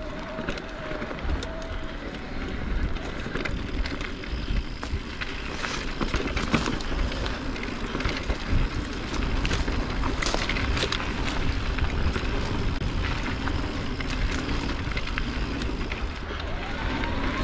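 Mountain bike riding a dirt trail: tyres on dirt and gravel, with the chain and frame rattling over bumps and wind rumbling on the microphone.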